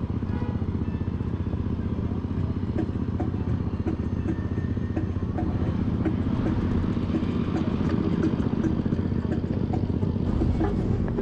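Riding noise from a camera on a moving bicycle: a steady rumble of wind and tyres, with a quick, uneven patter of rattling clicks from a few seconds in.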